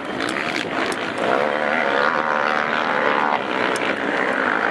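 Racing quad (ATV) engines revving hard, a buzzing drone whose pitch rises and falls as the riders work the throttle.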